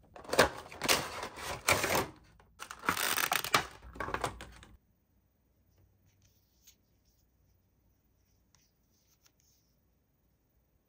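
Toy packaging being handled and unwrapped: two clusters of loud rustling and clicking that stop abruptly about five seconds in, followed by a few faint clicks.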